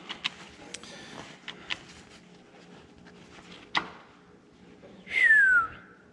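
A shop towel wiping an oily engine block and a debris-covered piston top, with scattered light clicks and taps. A sharper click comes a little before four seconds in. About five seconds in there is one loud squeak that falls in pitch and lasts about half a second.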